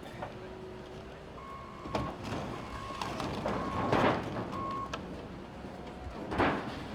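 Reversing alarm of a heavy machine sounding a series of steady single-pitch beeps, over the machine's low running noise. Loud rushing, scraping bursts break in about two seconds in, at about four seconds (the loudest) and again near the end.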